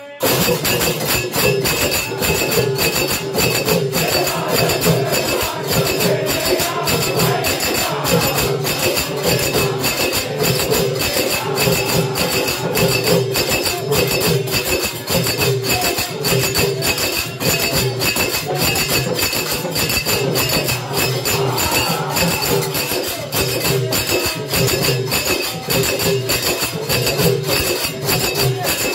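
A bhajan group singing a Hindu devotional song together, over a fast, steady beat of percussion.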